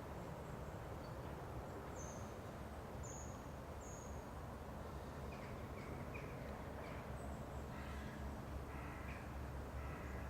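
Outdoor ambience of birds calling over a steady low rumble: a few short, high, falling chirps about two to four seconds in, then a run of harsher repeated calls in the second half.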